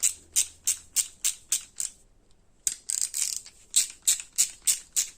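Stanley 72-tooth socket ratchet being worked back and forth. Each stroke gives a quick rattle of fine pawl clicks, about three strokes a second, with a short pause about two seconds in before the ratcheting resumes.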